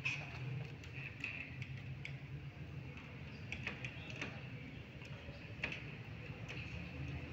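Scattered sharp clicks and taps of a chess game in play: pieces set down on a board and the buttons of a digital chess clock pressed, a few in quick succession around the middle, over a steady low room hum.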